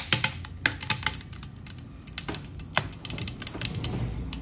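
Hardened caramel in a flan mold crackling as the blended flan mixture is poured over it: irregular sharp cracks, several a second.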